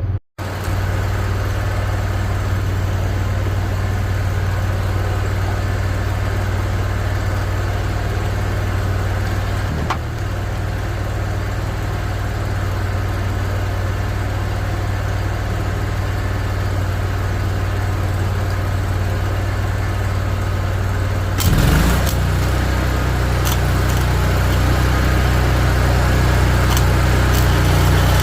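An engine idling steadily. About two-thirds of the way through there is a sharp knock, after which the engine's low hum runs louder, with a few faint clicks.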